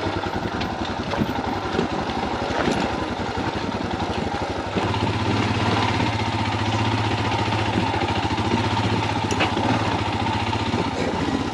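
Royal Enfield Himalayan motorcycle's single-cylinder engine running at low revs as the bike is eased down a rocky dirt track. Its low note becomes steadier and a little louder about five seconds in.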